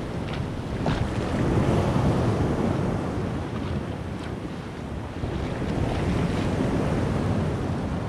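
Sea waves washing and splashing against a concrete breakwater, the surge swelling about a second and a half in and again about five seconds in.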